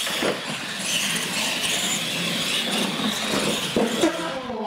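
Electric R/C monster trucks running flat out, a steady high whine of motors and gears, with a few knocks of wheels landing on concrete; the loudest is a sharp knock about four seconds in as a truck tumbles.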